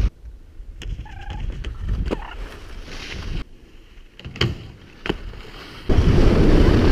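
Wind buffeting a helmet-mounted camera's microphone and skis running over packed snow, quieter at first with a few sharp knocks and a brief high gliding call about a second in, then much louder from about six seconds on.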